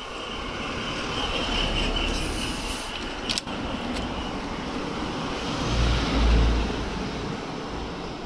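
Kawasaki ZRX1200R's air-cooled inline-four engine running steadily, with the alternator's clicking rattle gone after its bolts were refitted with threadlocker. A single sharp click about three seconds in, and a brief rise in low rumble about six seconds in.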